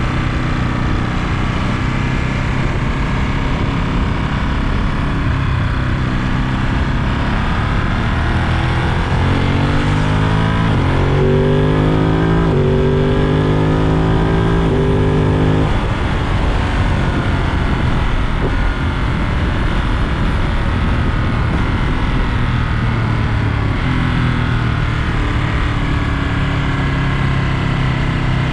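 Ducati Monster 937's V-twin engine running under way. About a third of the way in it accelerates through several quick upshifts, the pitch climbing and dropping back at each shift, then it settles into steady running.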